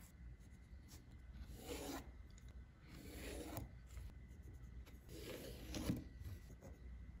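Faint rubbing and sliding as a steel rule and thin Baltic birch strips are handled and shifted over a rubber work mat, in a few soft swishes spread through the quiet.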